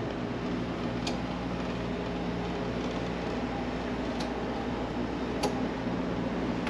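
Steady low hum of a ferry's ventilation and onboard machinery, with three faint light clicks spread across it.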